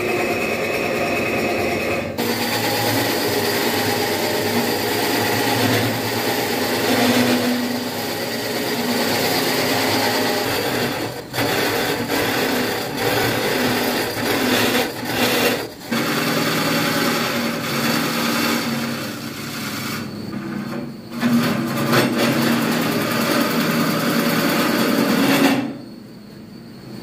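Turning tool cutting into a spinning wooden vase blank on a Vicmarc VL300 wood lathe, a steady scraping rasp over the lathe's running motor. It stops and restarts abruptly several times, and it is quieter near the end.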